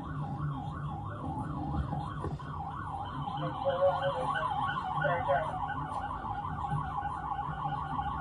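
Police car siren in yelp mode, its pitch rising and falling rapidly, about three to four times a second, over a steady low engine hum, heard from inside the cruiser.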